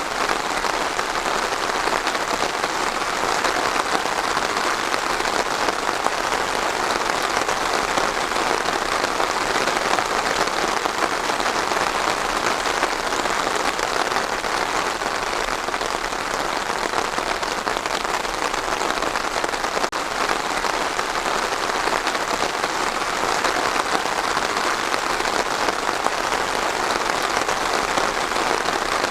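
Steady rain falling on a surface, an even patter with no let-up.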